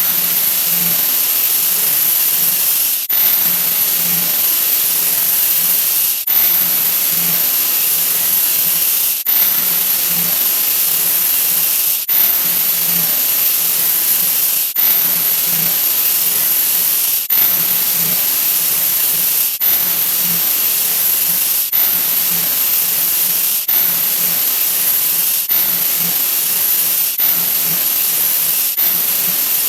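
A 'wah wah' sound effect sped up so far that it has become a loud, steady hissing rush. It restarts with a brief break about a dozen times, each repeat a little shorter than the one before.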